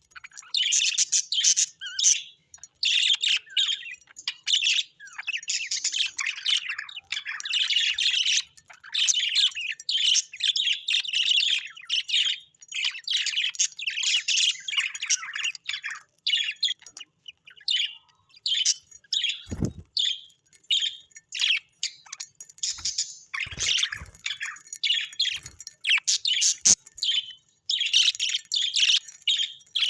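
Small pet parrots chirping and chattering without pause, many quick high chirps and squawks overlapping. A few dull thumps come in about two-thirds of the way through.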